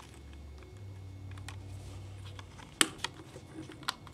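Small plastic clicks and taps from a Transformers Human Alliance Sideswipe toy figure being handled and its parts fitted into place, with one sharper click about three seconds in.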